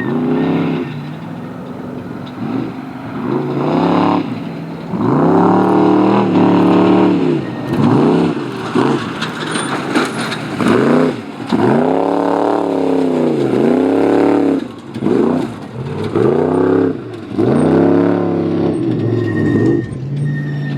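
Off-road race car engine revving up and dropping back again and again, about once a second, as the throttle is worked hard over rough ground.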